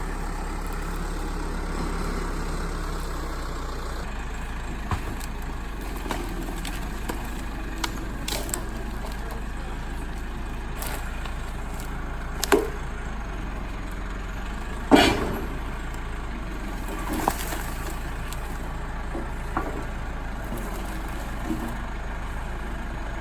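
Backhoe engine running steadily, with scattered sharp knocks and clunks, two louder ones past the middle, as the machine handles the stump and logs.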